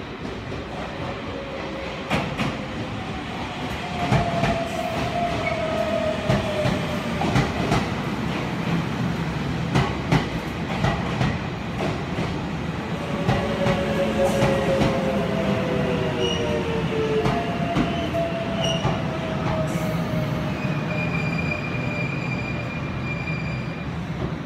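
Keio Inokashira Line electric commuter train rolling in alongside the platform as it brakes. Its wheels click repeatedly over rail joints and points, and several long high squeals sag slightly in pitch as it slows, over a steady low running hum.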